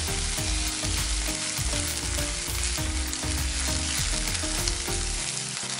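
Soaked moth beans sizzling in hot oil in a nonstick pan as they are stirred with a spatula. A low background music track plays underneath and thins out near the end.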